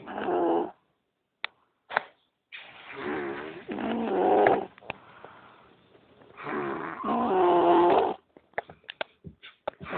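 Loud snoring in long, drawn-out snores with a whining, wavering pitch: two full snores about four seconds apart, with a few short clicks between them.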